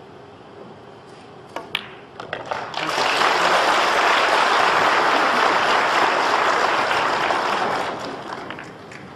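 A few sharp clicks of cue and pool balls, then audience applause that starts about three seconds in, holds steady for about five seconds and dies away near the end.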